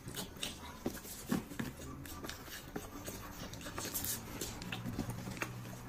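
Faint, scattered clicks and rustles of hands working the ribbon and wrapping on a gift box, mixed with soft chewing sounds from someone eating at the table.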